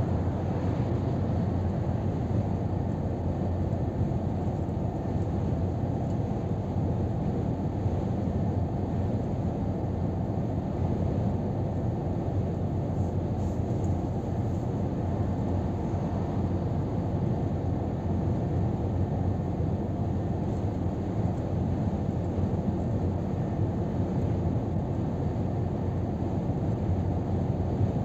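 Scania R500 truck cruising at motorway speed, heard from inside the cab: a steady low drone of engine, tyres and wind.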